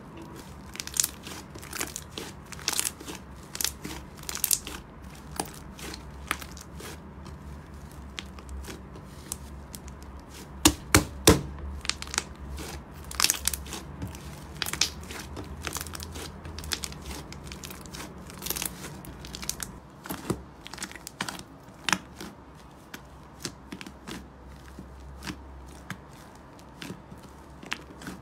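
Thick white fluffy slime being squeezed, pressed and pulled apart by hand, giving irregular sticky crackles, pops and tearing sounds. A quick cluster of the loudest pops comes about eleven seconds in.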